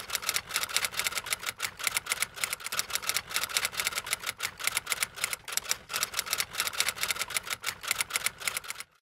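Rapid, uneven typewriter key clicks, about eight a second. It sounds like a typing sound effect: it starts and stops abruptly against dead silence.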